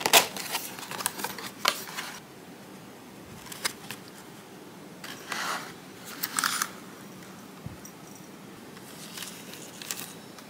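Small kraft cardboard box being handled and its lid opened: scattered taps and clicks of cardboard with brief papery rustles.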